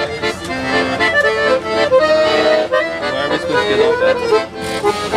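Accordion playing a melody of quick notes over held chords.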